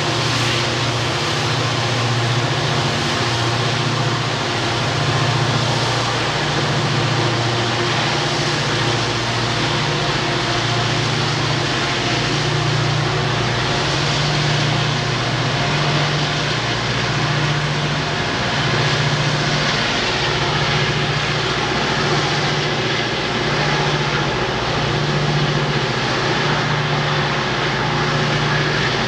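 Norfolk Southern diesel-electric helper locomotives pushing on the rear of a loaded freight train, their engines working hard uphill. A steady, loud, deep drone with a low throb that swells and fades every second or two, over a wide rushing noise.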